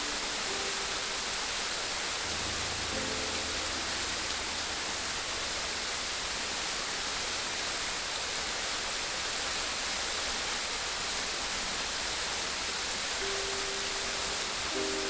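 Steady rushing water, an even hiss with no breaks. Soft background music is laid over it, with a few held notes and a low bass tone starting about two seconds in.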